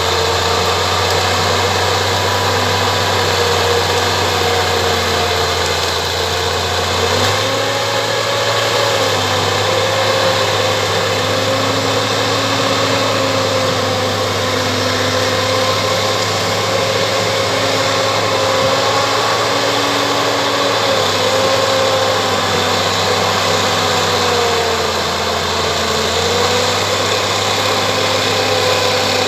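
Bulldozer's diesel engine running steadily, its pitch wavering slightly up and down.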